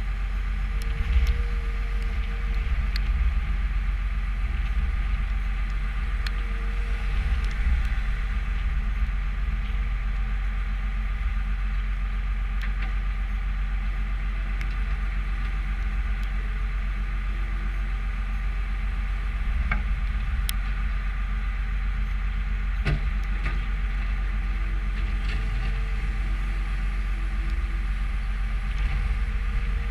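New Holland skid steer loader's diesel engine running steadily while it works, with a few sharp knocks and rattles from the machine.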